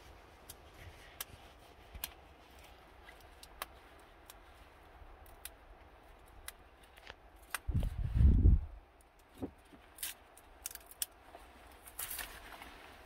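Dry dogbane (Indian hemp) stalks being broken and split by hand, giving a scatter of small sharp cracks and clicks. A brief low rumble about eight seconds in is the loudest sound.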